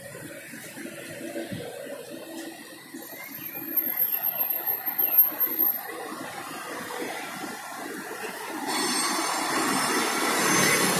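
Urban road traffic around a roundabout: cars and a motorcycle passing by. About eight seconds in, a louder rushing sets in with a high metallic squeal over it.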